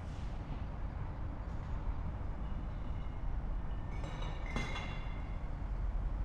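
Ambience outside a subway station: a steady low city rumble, with a brief high metallic ringing and clink about four seconds in.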